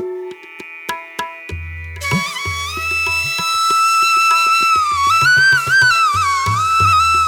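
Japanese-inspired instrumental music: a flute melody comes in about two seconds in, holding long notes that bend in pitch, over steady drum and percussion beats.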